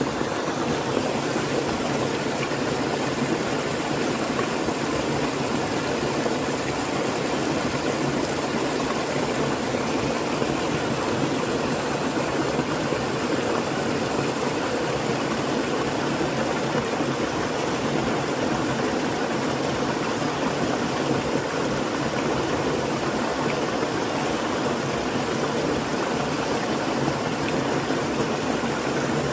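Flowing water rushing steadily, an even, unbroken wash of sound.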